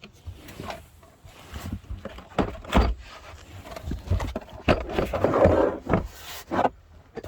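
Boot floor carpet and trim panel being pulled out and shifted by hand: irregular knocks and thuds with scraping, rustling noise, busiest about five seconds in.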